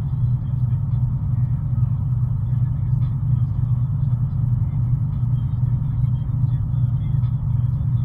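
Steady low rumble of a vehicle driving at road speed, engine and tyre noise heard from inside the cabin.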